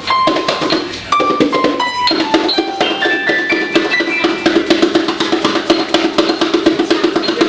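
Children banging fast and steadily on bongos, with a handful of piano notes in the first half that step down and then back up in pitch.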